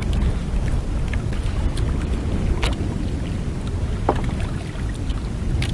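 Steady wind and sea noise rumbling on the microphone aboard a small outrigger boat, with a few sharp clicks of gear being handled.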